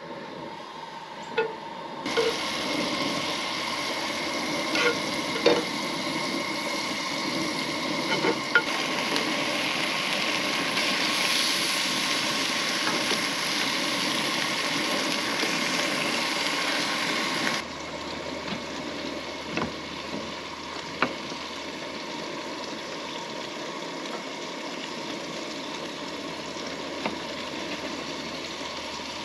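Food sizzling in butter in a frying pan, a steady frying hiss with occasional taps of a cooking utensil. The sizzle gets louder about two seconds in and drops back lower past the middle.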